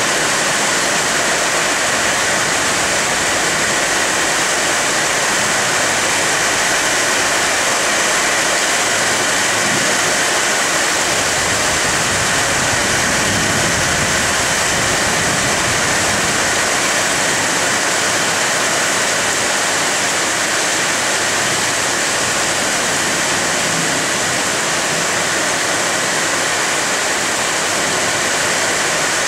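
Steady rain falling on the leaves of trees, an even, unbroken hiss.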